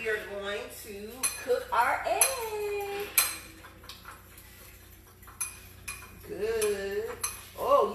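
Kitchen utensils clinking and knocking against dishes and cookware in a series of separate sharp clicks. A voice without clear words sounds in between, near the start, around two seconds in and again near the end.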